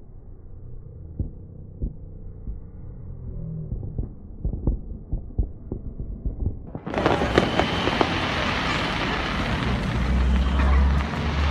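Fireworks bursts slowed down with slow-motion footage: a run of low, muffled thuds, about a dozen. About seven seconds in the sound switches abruptly to full-speed, brighter and louder outdoor noise, with a steady low hum near the end.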